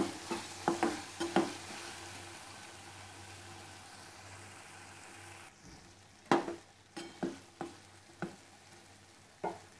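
Diced potato, onion and green chillies frying in oil in a metal kadhai, with a steady sizzle that fades through the middle. A metal spatula stirs and scrapes the pan, giving sharp clinks near the start and again several times in the second half.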